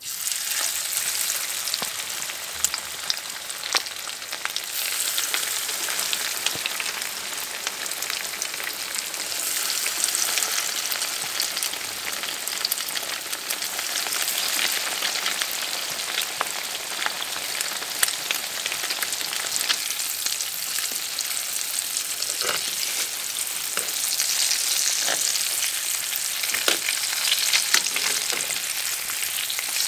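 Crappie fillets sizzling as they fry in hot oil in a pan, a steady hiss with scattered crackling pops.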